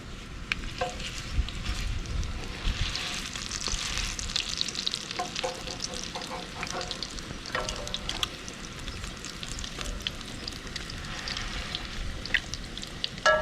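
Salmon patties frying in hot oil: a steady sizzle with constant crackling and spitting pops.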